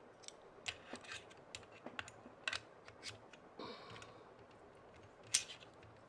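Small clicks and rattles of a Falcam F38 quick-release plate being handled in its clamp, with a brief scraping slide near the middle and a sharper click a little after five seconds in.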